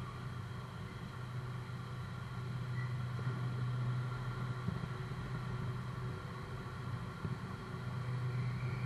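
A steady low hum of cars driving slowly through a ferry's enclosed car deck.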